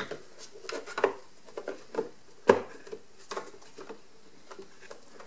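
Scattered plastic clicks and knocks, roughly one a second, as the main brush housing of a Roborock robot vacuum is pried and worked out of its plastic chassis by hand; the loudest knock comes about halfway through.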